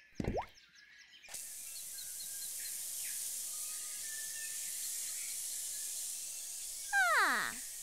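Cartoon sound effect of water spraying from a garden hose: a steady hiss that starts about a second in. Near the end comes a short sound effect that falls quickly in pitch.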